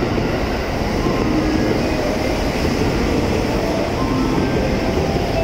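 JR West 683 series electric train arriving at a platform, its cars rolling past with a loud, steady running noise of wheels on rail as it slows to stop. A few faint high tones come in near the end.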